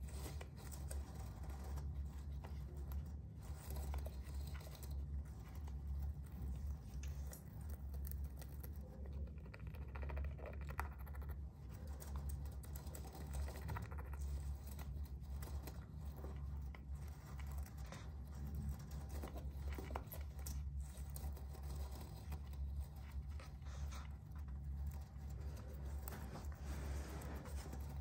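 Long-haired Syrian hamster scratching and clawing at a wall corner: an irregular patter of small scratches and clicks, over a steady low hum.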